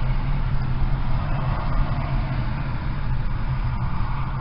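Steady rumble of road and engine noise heard from inside a car's cabin as it moves slowly in traffic.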